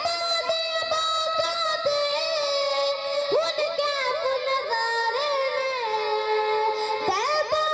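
A boy singing a Punjabi naat, an Islamic devotional song, through a microphone. He holds long notes with ornamented turns, and his voice slides up near the end.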